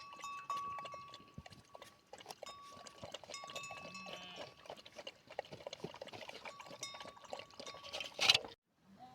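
Flock of sheep on the move: many small clicks and knocks with a steady ringing tone coming and going, and a bleat about four seconds in. A loud burst comes near the end, then the sound cuts off abruptly.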